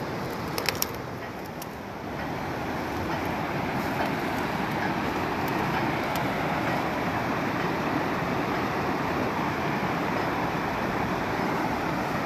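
Fast, muddy floodwater rushing down a swollen river, a steady rush of noise that grows a little louder after about two seconds. A few sharp clicks just under a second in.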